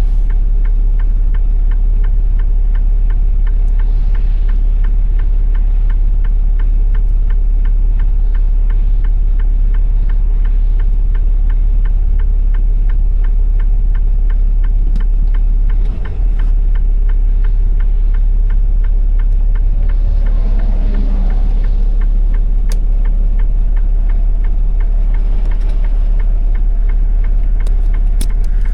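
Semi truck's diesel engine idling, a steady low rumble with a fast, even ticking clatter.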